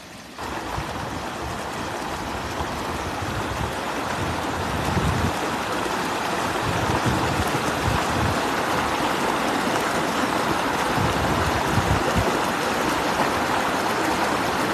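Fast river water rushing over rocks in a shallow rapid: a steady roar of water that cuts in sharply about half a second in and grows slowly louder.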